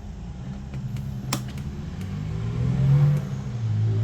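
RV air conditioner switched on at the thermostat: a click about a second in, then its motor hum rises in pitch and grows louder as it spins up.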